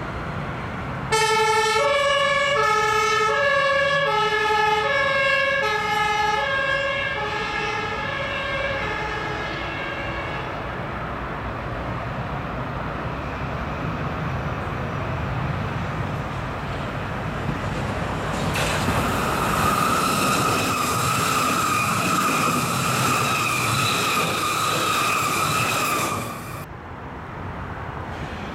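A German emergency vehicle's two-tone siren (Martinshorn) switches between a low and a high note about every 0.7 s for some nine seconds, fading away. Later a Hamburg S-Bahn class 474 electric train passes close: a steady high whine over rail noise for about eight seconds that starts and stops abruptly.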